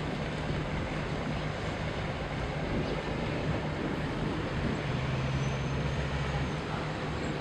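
Steady rushing of wind on the microphone over a river, with a low, steady engine drone underneath; a second, deeper hum joins for about a second and a half past the middle.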